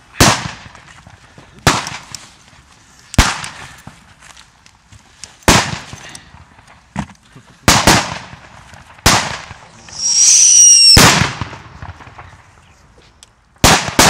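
Thrown firecrackers going off one after another: about eight sharp bangs spaced a second or two apart. About ten seconds in, a shrill whistle lasts roughly a second and ends in one of the bangs.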